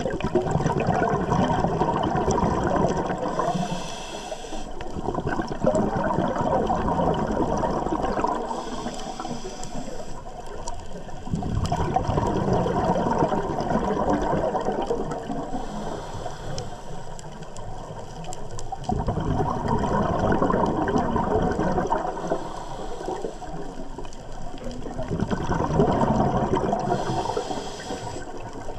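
Scuba diver breathing through a regulator underwater: exhaled bubbles rushing out in bursts lasting a few seconds, about five times, with quieter gaps and a brief hiss between some of them.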